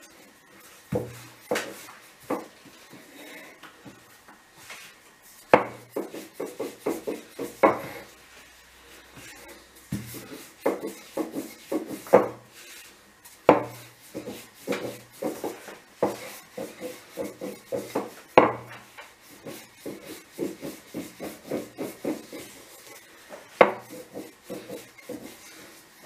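Wooden rolling pin rolling out thin rounds of unleavened börek dough on a floured countertop: quick back-and-forth rolling strokes with light clacks, and a heavier knock on the counter every few seconds.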